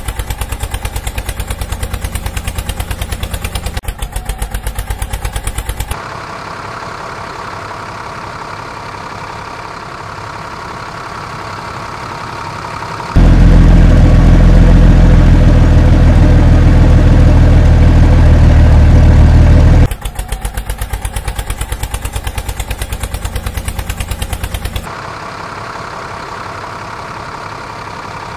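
Engine sound effects laid over plastic toy vehicles, changing abruptly between segments. A fast, even diesel-tractor chug switches to a steadier engine hum. About 13 seconds in, a much louder, deep truck-engine rumble cuts in for about seven seconds, and then the chug and the hum return.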